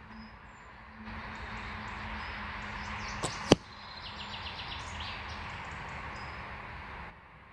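A faint snap of the Samick SHT 40 lb recurve bow's string on release, then about a quarter of a second later a loud, sharp smack as the arrow hits the target. Birds chirp throughout.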